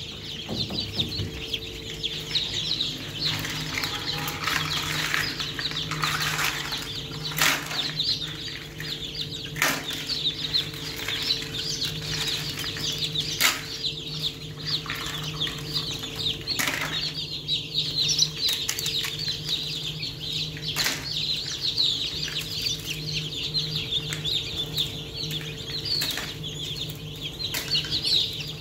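A crowd of newly hatched chicks peeping without pause. A steady low hum sits underneath, and scattered sharp knocks and rustles come from the eggshells, eggs and chicks being handled in the hatching crate.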